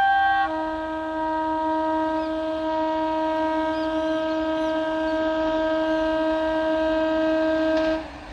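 Indian Railways train's air horn sounding: a brief high note, then a long steady lower note held for about seven and a half seconds, cutting off near the end.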